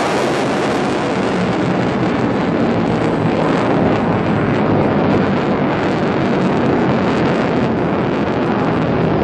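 Single-engine F-16 fighter jet flying overhead: loud, steady jet noise, with the highest hiss thinning a little partway through.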